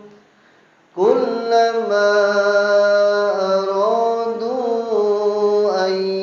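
A man chanting Qur'an recitation (tilawah) in Arabic. After a brief pause for breath, he holds one long drawn-out melodic phrase with slow pitch turns in the middle, and a new phrase begins near the end.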